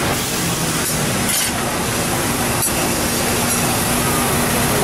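Street-side teppanyaki griddle with food cooking on it: a steady, loud sizzling roar with a low hum under it. A few sharp clinks of metal cut through, the clearest about two and a half seconds in.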